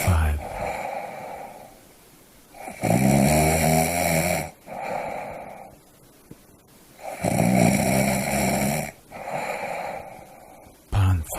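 A sleeper snoring in a slow, regular cycle: a loud snore on each breath in, about every four and a half seconds, each followed by a softer breath out and a short quiet pause.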